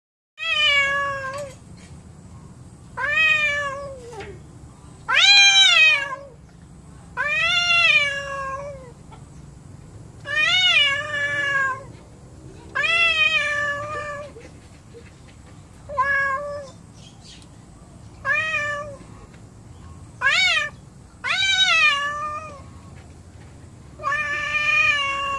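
Cat yowling in about eleven long, wavering calls, one every two seconds or so, each rising then sliding down in pitch: the hostile yowl of an angry cat squaring off with another cat.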